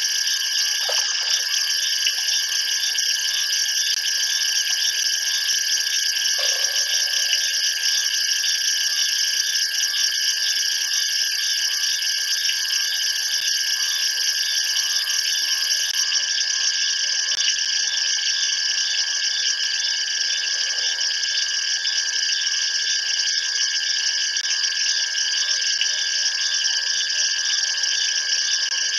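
Steady night chorus of insects, several high trilling layers on top of each other; the highest layer stops about halfway through.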